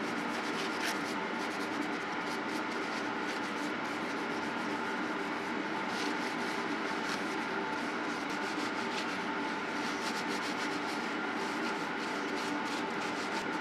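Paper towel rubbing and wiping over forged steel crosses, in many short strokes, over a steady mechanical hum.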